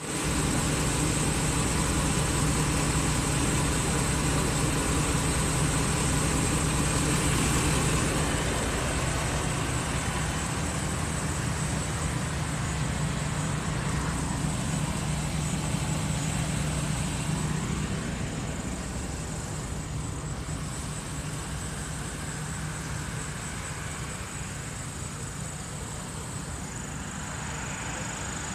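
Car engine idling, a steady low hum, with a thin steady high tone above it; it grows a little quieter about eight seconds in and again later.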